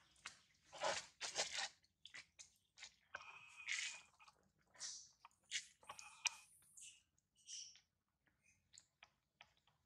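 A macaque biting and chewing crunchy fruit, a run of irregular wet crunches and snaps that thin out in the last few seconds.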